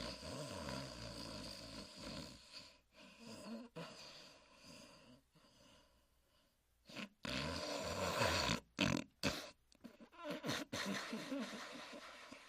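A sleeping dog snoring: long rasping snores with short pauses between them, quieter for a couple of seconds midway, then louder again.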